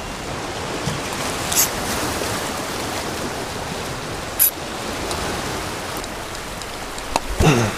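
Ocean surf washing against a rocky shoreline below, a steady hiss, with a couple of sharp clicks.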